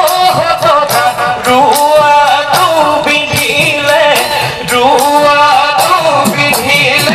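Live Bihu music: dhol drums beating a quick, steady rhythm under a wavering sung or piped melody.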